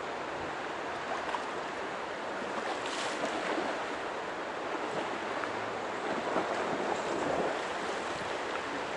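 Steady rush of a shallow river flowing, swelling slightly a little past the middle.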